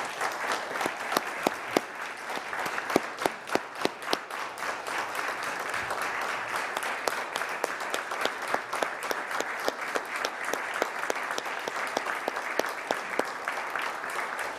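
Applause from a chamber full of people: steady hand clapping throughout, with a few louder single claps standing out in the first few seconds.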